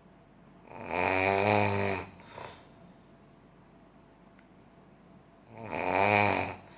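A sleeper snoring loudly: two long, pitched snores, each about a second, roughly five seconds apart, the first followed by a short softer breath.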